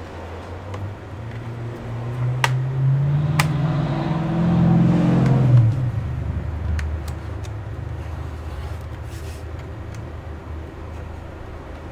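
A motor vehicle's engine accelerating, its note rising over a few seconds and then cutting off sharply. A few sharp clicks sound over and after it.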